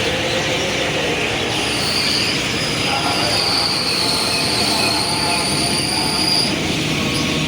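A long, high-pitched metallic squeal holding at one pitch, wavering slightly, for about four seconds, over the steady noise of city traffic.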